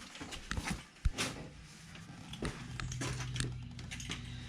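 Irregular clicks and light knocks of a rebuilt ATV starter motor being worked by hand into its tight-fitting mounting bore, with one sharper knock about a second in. A low steady hum comes in about halfway.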